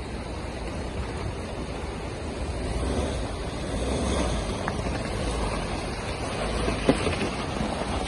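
Ford Endeavour SUV driving over rough off-road ground: a steady, noisy rumble, with one sharp knock about seven seconds in.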